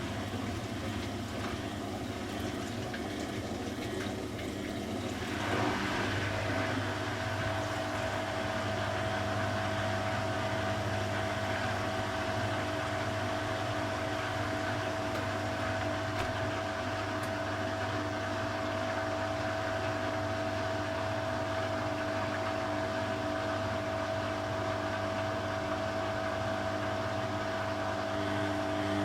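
Beko WTB841R2W washing machine running a cycle: water rushing through the machine, then about five or six seconds in a steady hum with a whine sets in and holds.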